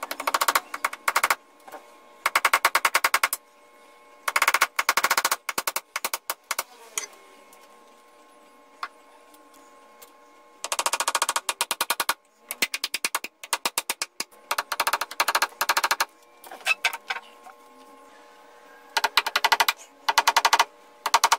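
Small hammer tapping small nails into the edge of a wooden workbench top, in bursts of very rapid light blows about a second long with short pauses between.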